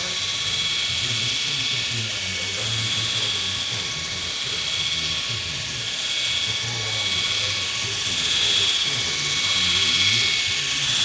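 Miniature RC helicopter hovering, its motor and rotors giving a steady high-pitched whine that swells and fades a little as it moves about.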